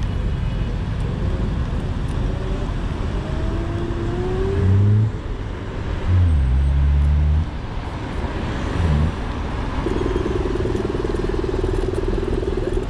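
City street traffic and the rush of riding on an electric scooter, a steady noisy background. Three louder low rumbles stand out, the longest from about six to seven and a half seconds in, and a steady hum runs through the last three seconds.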